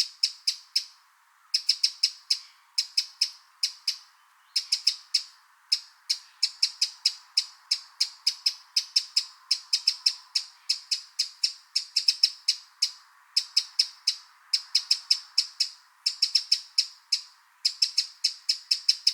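Eurasian wren calling: hard, sharp, high notes repeated rapidly in short runs with brief gaps between them.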